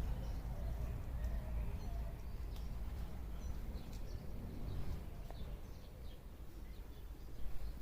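Small birds chirping, with many short scattered calls over a steady low rumble, and a brief louder sound near the end.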